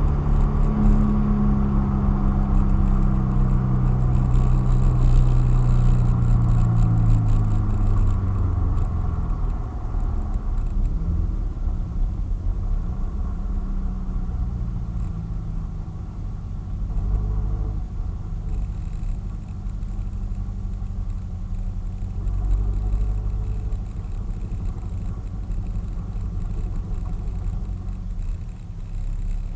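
Car engine and road noise heard from inside the cabin. The engine note falls in pitch over the first several seconds as the car slows off the throttle, then settles into a low, steady rumble at low speed.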